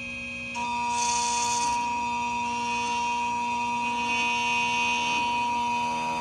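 Key-cutting machine running, cutting a key to a code decoded from the car's lock: a steady whine that starts about half a second in and runs until the end, with a harsher hissing stretch of cutting about a second in.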